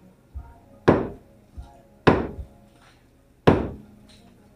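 Sledgehammer striking a concrete wall during demolition: three heavy blows about a second and a half apart, each followed by a short rattle of crumbling debris, with a few lighter knocks between.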